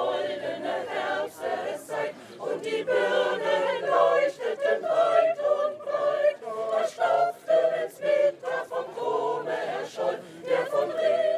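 Mixed choir of women's and men's voices singing together, holding and changing sung notes in a continuous phrase.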